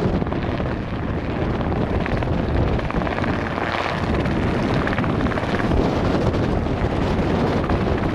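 Wind buffeting the microphone over the distant sound of a small helicopter flying low.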